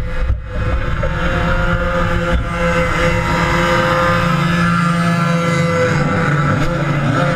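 Racing kart engines running steadily, a continuous engine drone that holds its pitch, with a brief dip in level just after the start.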